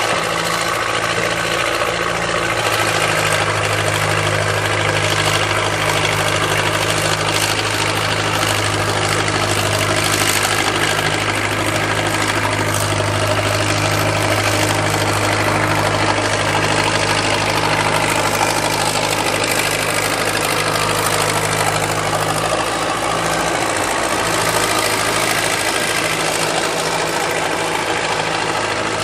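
Backhoe engine running at a steady speed, its note easing off and changing briefly a little over 20 seconds in.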